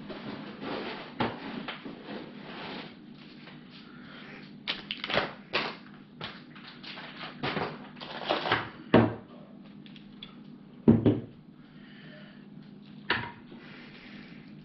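Rustling at first, then laser engraver parts and their packaging set down on a wooden table: a string of clatters and knocks, with the loudest thumps about nine and eleven seconds in and another near the end.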